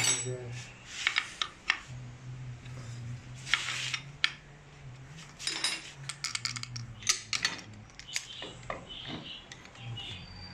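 Small metal parts clinking and tapping as a Toyota 2C diesel's VE-type fuel injection pump is reassembled by hand: irregular sharp clicks, some in quick runs, with metal knocking on the pump's cast body.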